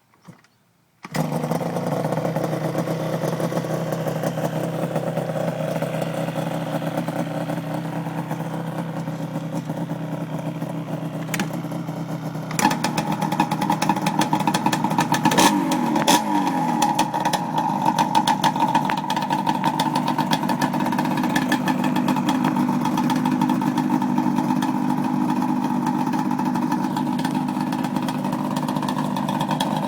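Yamaha Banshee twin-cylinder two-stroke ATV engine running at idle, coming in abruptly about a second in. About 13 seconds in the sound grows louder with a higher tone added, and the throttle is blipped briefly around 15 to 16 seconds.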